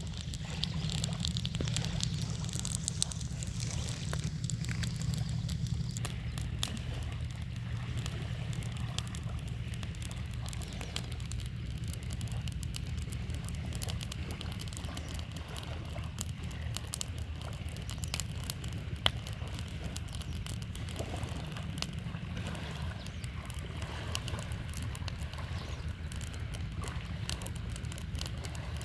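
Campfire crackling with scattered small pops, one sharper pop about two-thirds of the way through, over a steady low rush of flowing river water.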